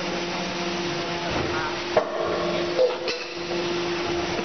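Machinery running on a cookware production line: a steady motor hum, with a sharp knock about two seconds in and a second, shorter knock about a second later.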